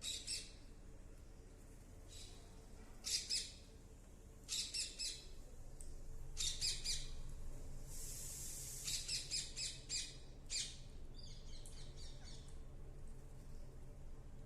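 Parrot chirping in short clusters of quick, repeated high-pitched calls, a few calls to each cluster, every second or two. A brief high hiss comes about eight seconds in.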